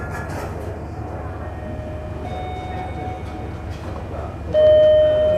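Railway station concourse ambience with a low steady hum. A faint steady electronic tone sounds briefly about two seconds in, then a loud, steady, single-pitched tone starts abruptly about four and a half seconds in and holds on.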